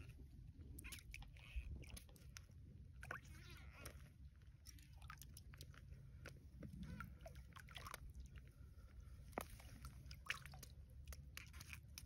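Faint, scattered crunching and wet sloshing from hands working a fishing line in a slushy ice-fishing hole, with many small clicks and crackles over a low steady rumble.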